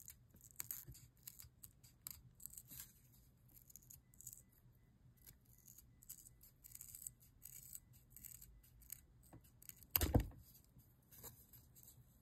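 Small scissors snipping through thin leather in a run of short, irregular cuts, with one louder knock about ten seconds in.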